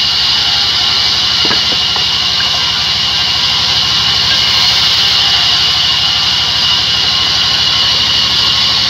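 Sawmill band saw cutting lengthwise through a log: a loud, steady high hiss of the blade in the wood over the low hum of the saw's motor and drive, which carries a fast, even pulse.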